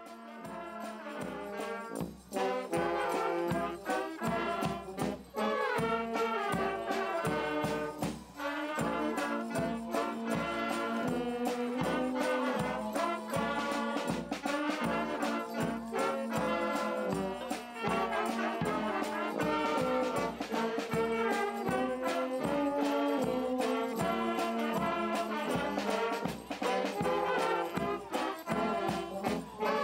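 Music played on brass instruments, with a steady beat.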